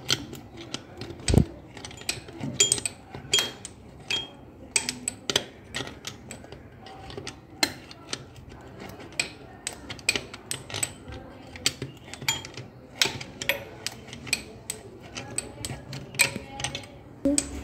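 Pliers clicking and scraping on the metal fixing nut and threaded rod of a loose basin mixer tap as the nut is tightened: many irregular, sharp metallic clicks.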